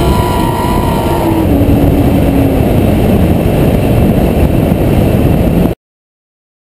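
Nissan Cefiro drift car's engine note under heavy wind rumble on a camera strapped to the car's side; the revs drop steadily as the car comes off the throttle. The sound cuts off abruptly near the end.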